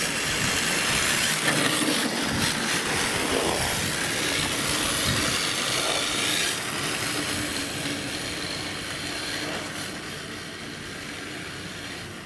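Radio-controlled drift car sliding on asphalt: a steady hiss of its tyres scrubbing across the surface, with its electric motor whining up and down as the throttle changes. The sound is loudest in the first half and fades over the last few seconds.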